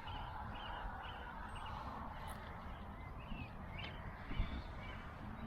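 Birds chirping faintly over a steady outdoor hiss, with a soft knock about four and a half seconds in.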